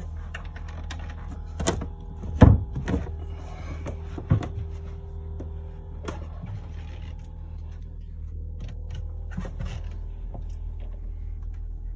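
Wooden stairway hatch being worked open by hand to reach the generator compartment: a string of knocks and bumps, the loudest about two and a half seconds in, over a steady low hum.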